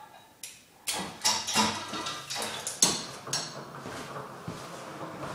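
Clinks and knocks of metal gear being handled at a cable weight machine: a dozen or so sharp hits bunched in the first three and a half seconds, then softer shuffling.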